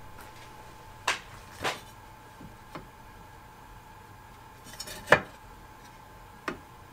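A metal rafter square and a wooden yardstick being set down and shifted on a wooden workbench: five short clinks and knocks, the loudest about five seconds in, over a faint steady hum.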